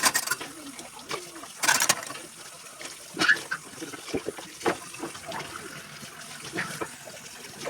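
Tap water running steadily into a kitchen sink, with several sharp clinks and knocks of items being handled.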